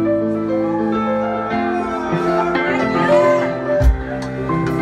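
Live jam band playing an instrumental passage: sustained keyboard and electric guitar notes over bass and drums, with cymbal crashes and a heavy kick-drum hit about four seconds in.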